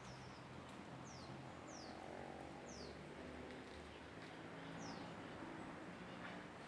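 A bird giving short, high, downward-sweeping calls, five of them spaced irregularly, over faint steady background noise.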